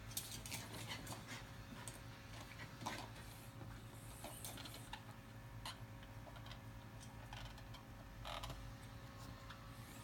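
Irregular clicks, knocks and plastic rattles of a small terrier chewing and pushing a hard plastic wheeled GoBone toy, with a louder cluster of knocks about three seconds in and again near the end.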